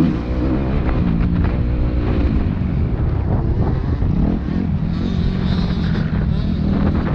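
Dirt bike engine running under the rider, its pitch rising and falling as the throttle is worked along the track.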